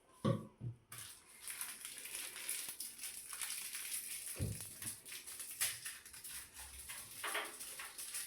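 A dry, steady rustling hiss full of small crackles from cleaning supplies being handled at the washing machine, starting about a second in. There is a dull thump near the start and another a few seconds later.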